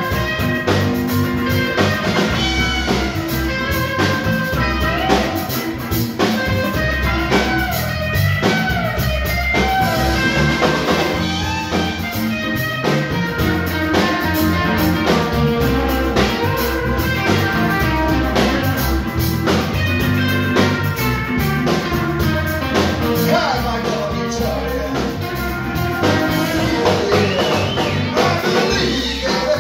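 Live blues-rock band playing in a bar: electric guitar and drum kit, with singing.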